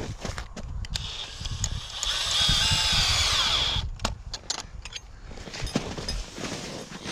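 A power tool's motor whines for about three seconds, its pitch falling as it winds down and stops.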